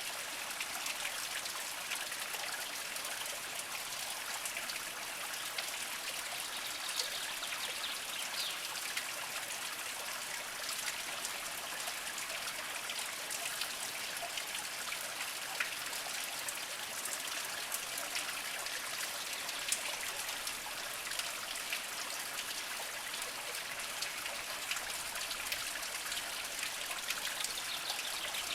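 A small mountain spring trickling over mossy rocks: a steady water hiss dotted with small drips and splashes.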